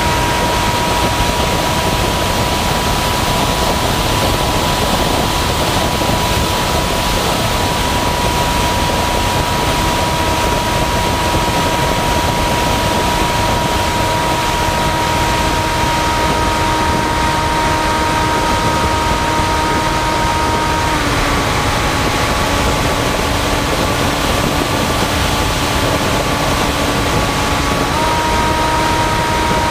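Model flying wing's motor and propeller heard from the aircraft itself: a steady whine over wind rush. The whine drops in pitch a little past twenty seconds in as the motor slows, then returns to its higher pitch near the end.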